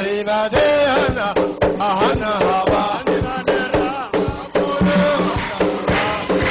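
Somali traditional folk song for a warriors' dance: male voices singing and chanting in sliding, ornamented lines over steady drum beats.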